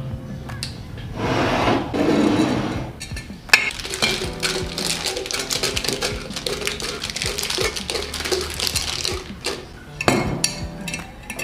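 Foil-wrapped snack bars crinkling and ticking as they are dropped one by one into a clip-top glass jar. Sharp glass clinks from the jar and its lid come about three and a half seconds in and again near the end.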